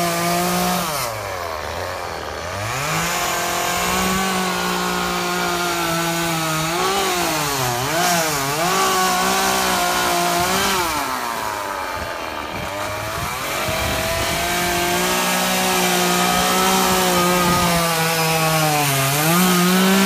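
Two-stroke chainsaw running at high revs as it carves into a large ash trunk. Its engine pitch drops steeply and recovers several times, about 2 s in, around 8 s and around 12 s, then climbs again near the end.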